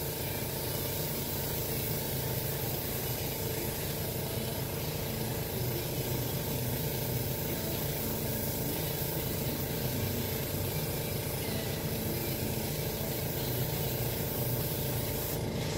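Airbrush spraying paint in a steady hiss, with a steady low hum underneath.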